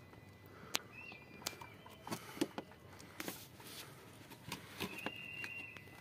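Scattered light clicks and knocks of a cut plastic water bottle being handled and fitted over a planted container, with a short high thin whistle twice in the background.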